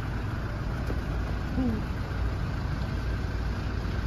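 Steady low rumble of city street ambience, with a short falling tone about one and a half seconds in.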